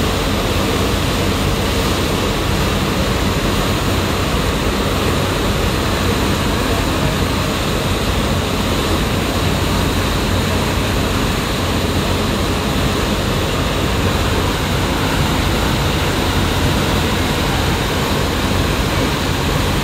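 Ferry's engine running steadily under the rush of the churning wake behind the stern, a loud, even noise with a low hum.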